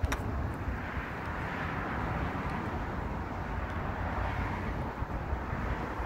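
Steady wind rumble and outdoor noise on the microphone, with one sharp click just at the start.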